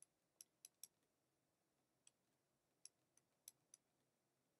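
Faint computer clicks, about eight at irregular intervals, as keys are clicked one by one on an on-screen graphing calculator to enter a calculation.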